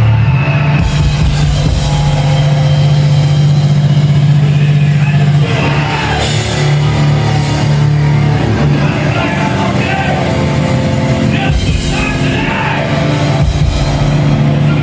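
Hardcore punk band playing live, with loud distorted guitars, bass and drums. The full band, cymbals included, comes in just under a second in.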